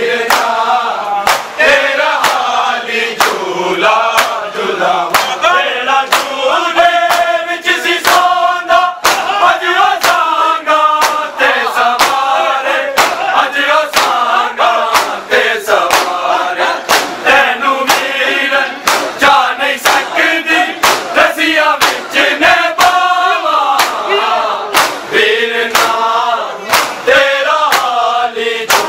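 Crowd of Shia mourners chanting a noha together while beating their bare chests with their hands (matam). The chest slaps make a sharp, regular beat about twice a second under the voices.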